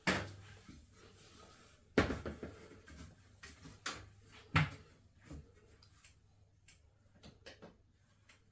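Aluminium stepladder knocking and clattering as it is set in place and climbed, with a few hard knocks at the start, about two seconds in and near five seconds, then lighter clicks from handling the curtain rod at its wall bracket.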